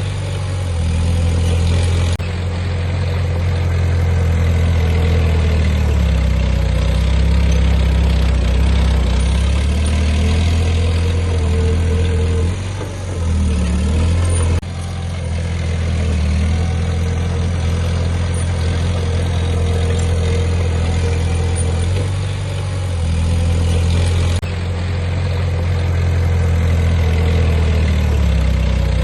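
Heavy diesel engines of earthmoving machines running steadily, with the revs rising and falling around the middle. The sound changes abruptly three times, at edit cuts between shots.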